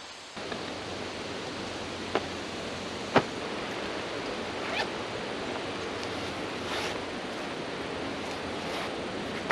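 Steady rushing outdoor background noise, with a handful of short sharp clicks, about two, three, five and seven seconds in, as a backpack's buckles and pockets are handled.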